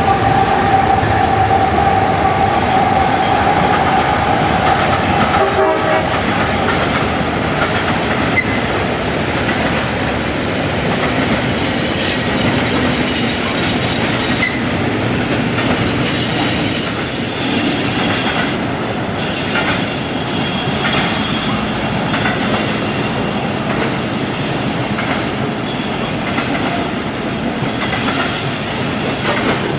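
US Army 2-8-0 steam locomotive No. 610 and its train going by. The whistle blows one long steady note for about the first six seconds. Then the train rolls on with wheels clattering over the rail joints and high wheel squeals coming and going.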